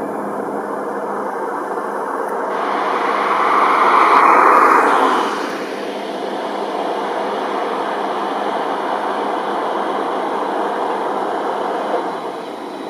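Jet airliner engines heard on final approach, a steady rushing roar that swells to its loudest about four to five seconds in and then drops off sharply.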